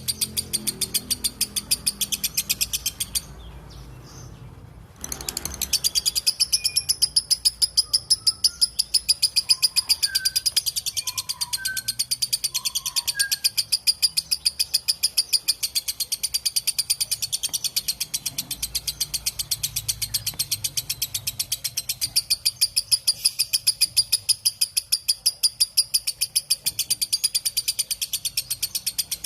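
Lovebird giving its long 'ngekek' chattering call: a fast, even run of shrill notes that breaks off for about two seconds near the start, then carries on. A few faint short chirps sound underneath around the middle.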